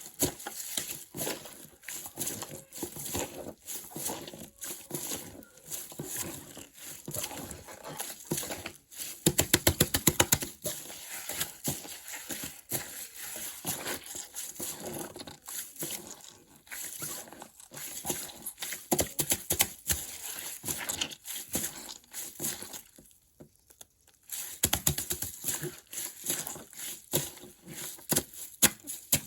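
A plastic bag with water in it crinkling and crackling as it is jostled about, in irregular rapid bursts. It goes briefly quiet about two-thirds of the way in, then picks up again.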